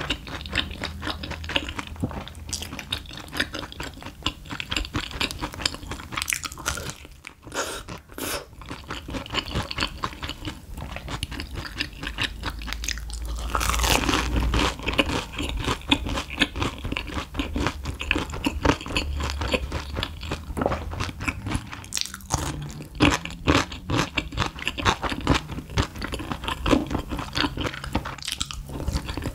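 Close-miked crunching and chewing of a crispy fried Monte Cristo sandwich dipped in sauce, with a short quieter pause about seven seconds in.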